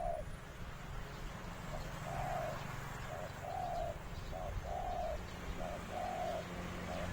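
A wild-caught zebra dove cooing: a repeated two-part phrase, a short note followed by a longer one, about once a second, with a faint low hum under it.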